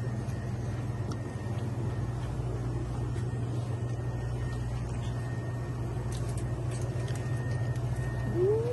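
Steady low hum of a small shop's refrigeration and ventilation, with a faint steady high whine and a few light clicks. Near the end a short tone rises and then holds.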